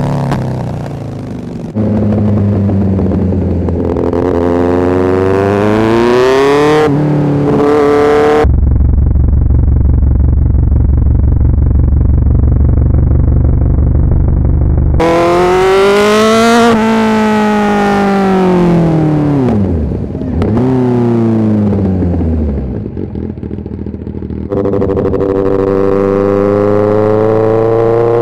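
Motorcycle engine pulling through the gears, the revs climbing and dropping back at each shift. Partway through comes a muffled stretch of steady running at low revs. Then the revs swing up and down and climb again near the end.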